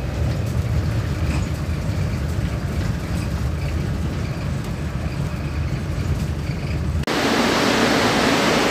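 Steady low rumble of a bus's engine and tyres heard from inside the moving bus. About seven seconds in, the sound cuts abruptly to a louder, even rushing noise.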